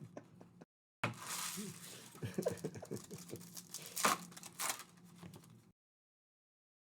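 Crinkling and tearing of trading card pack wrappers, with clicks and a sharp snap about four seconds in; the sound cuts out to dead silence twice.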